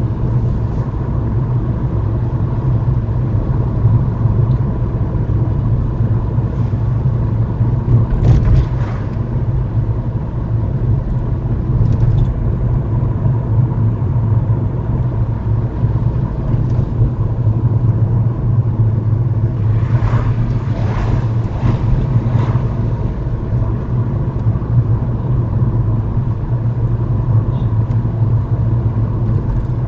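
Car cabin noise while cruising at about 30 mph: a steady low road and engine rumble, with brief louder noises about eight seconds in and again around twenty to twenty-two seconds in.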